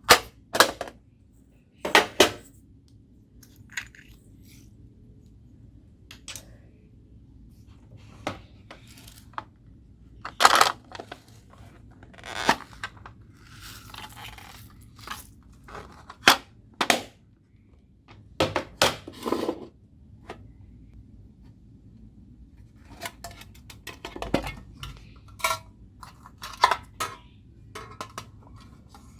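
Homemade slime being mixed and squished by hand, with irregular sharp pops and clicks and some stretches of sticky crackling.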